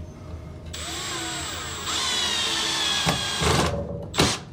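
Cordless drill driving screws into a wooden brace: the motor whirs for about three seconds starting just under a second in, getting louder partway through, then stops and a few sharp knocks follow near the end.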